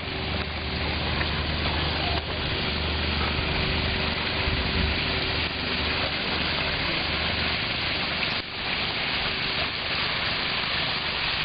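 Steady outdoor noise: an even hiss over an uneven low rumble, with no distinct events.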